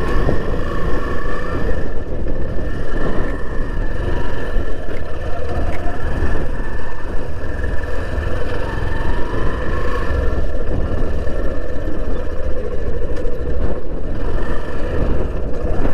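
Motorbike riding along a road: its engine running under a loud, uneven rumble of wind and road noise.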